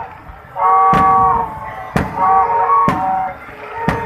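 Aerial fireworks shells bursting about once a second, four bangs in all, over loud music made of long held notes.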